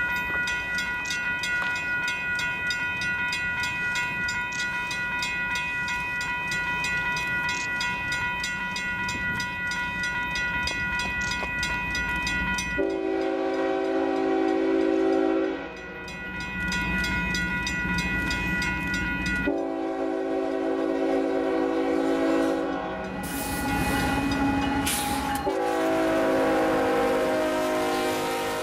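A bell rings steadily with regular strokes for about the first thirteen seconds. Then the horn of an approaching freight train's lead diesel locomotive, a CSX SD40-3, sounds three long blasts over the train's rumble.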